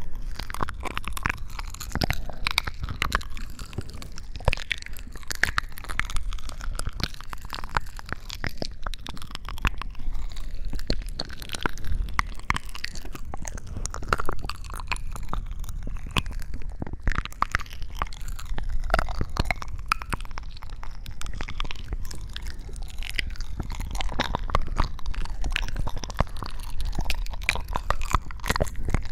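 Close-miked ASMR crunching: a dense, unbroken run of small crackles and clicks.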